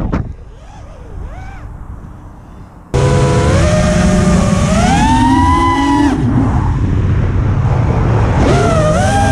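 FPV racing quadcopter's 2306 2400 kV brushless motors whining. For about three seconds the whine is faint and moves off, then it turns suddenly loud and close, with its pitch rising and falling as the throttle changes.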